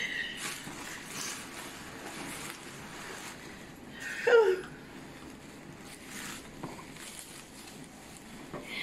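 Soft rustling of crumpled packing paper and plastic bubble wrap as a wrapped painting is lifted out of a cardboard box. About four seconds in there is a brief wordless vocal cry that falls in pitch.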